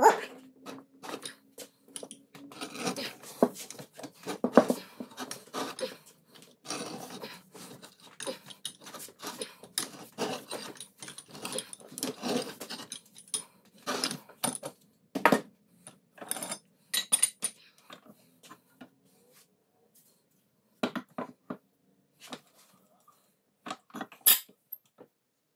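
Irregular metal clinks, knocks and scrapes from hand tools and metal parts being handled and worked, with a few short pauses in the second half.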